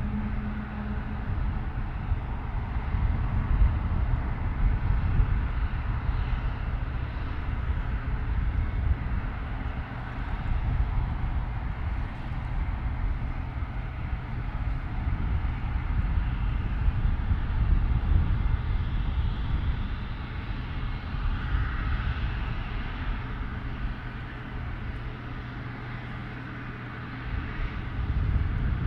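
Airliner engine noise: a continuous deep rumble with a steady low hum, easing for a few seconds near the end and then rising again.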